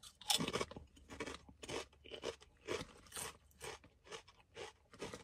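Close-up chewing of a mouthful of kettle-cooked potato chips. One loud crunch comes with the first bite, followed by a run of crisp crunches about two or three a second that grow fainter as the chips break down.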